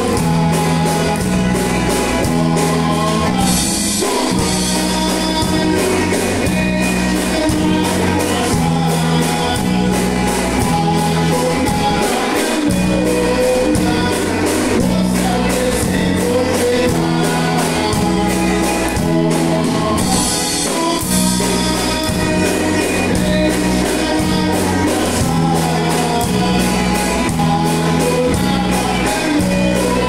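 Live band music: piano accordion, electric bass, electric guitar and drum kit playing an upbeat song with a steady stepping bass line, and a man singing lead.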